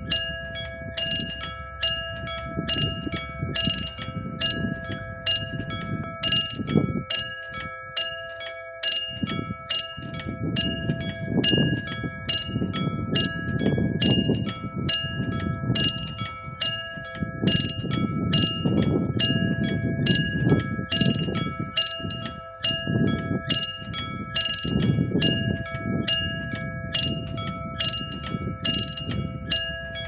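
Analogue level-crossing warning bell ringing with rapid, even strikes, about two a second, each sounding several ringing pitches at once like a chord. It is the signal that a train is approaching and the crossing is closed. Under it runs a low, uneven rumble.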